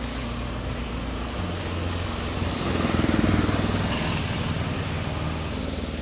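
A steady rushing noise that swells to its loudest about halfway through and then eases off, over low sustained tones that change pitch in steps.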